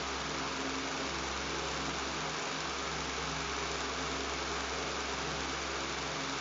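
Electric fan running steadily: an even rush of air with a low electrical buzz underneath, unchanging throughout.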